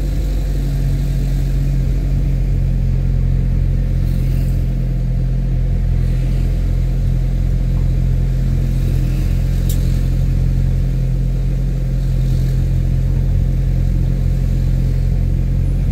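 Steady low drone of the vehicle's engine with road and wind noise while driving along a town street.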